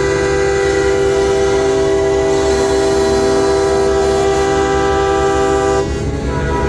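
Many truck air horns sounding at once, a dense chord of steady overlapping tones. The loudest, lowest horn cuts off near the end while others keep on.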